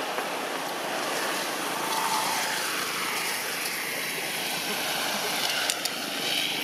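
Steady rushing outdoor background noise with no clear single source, and a few faint clicks near the end.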